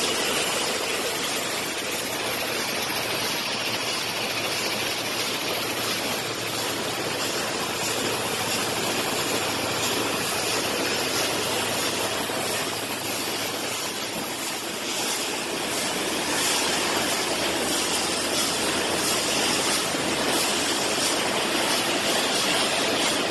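Steady mechanical noise of a nail conveying line running: a spring-mounted vibrating hopper full of nails and an inclined cleated belt conveyor carrying the nails up to the weigher. From about fifteen seconds in, faint quick clicks run through the noise.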